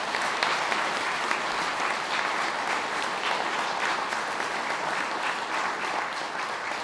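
Audience applauding: many hands clapping together at a steady level, easing slightly near the end.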